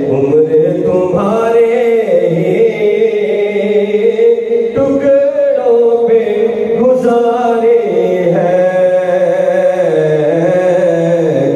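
Naat recitation: devotional Urdu poetry chanted melodically, without a pause.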